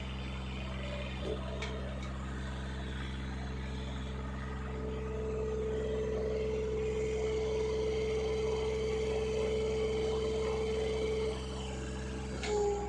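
Backhoe engine running steadily, with a higher steady whine that grows louder from about five seconds in and drops back near the end. There is a short click early on and another just before the end.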